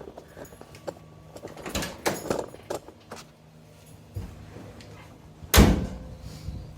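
Handling knocks and rattles, then one loud thump about five and a half seconds in. No engine is running.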